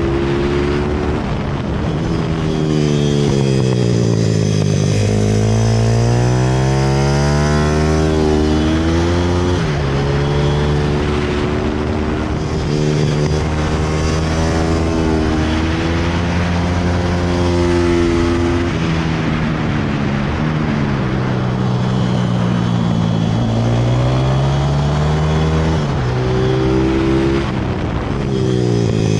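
Pit bike engine heard from the bike itself at speed, its pitch climbing as it accelerates, dropping sharply at each gear change and falling away as it slows for corners. Wind rushes past throughout.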